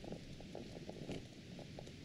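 Dense, irregular low crackling and rustling from someone walking with the camera: footsteps and movement noise on the microphone, with a faint click or two.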